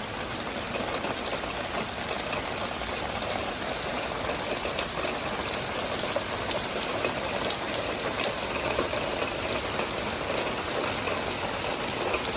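Hailstones falling in a steady, dense clatter of countless small impacts, with sharper individual clicks scattered throughout.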